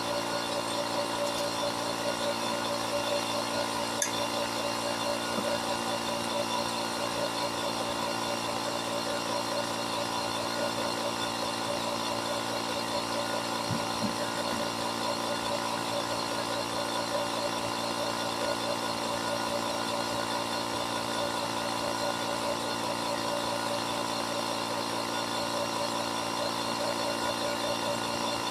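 Small portable air compressor running steadily, its motor holding one even pitch, as it inflates a freshly mounted tire with the valve core removed, the bead not yet seated.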